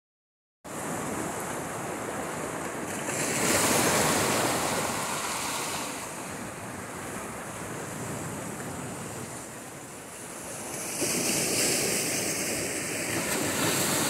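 Small sea waves washing and breaking over shoreline rocks, swelling louder twice: about three seconds in and again about eleven seconds in.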